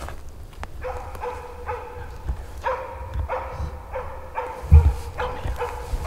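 Moose-hunting elkhound barking in a steady run, about two to three barks a second. A low thud about three-quarters through is the loudest single sound.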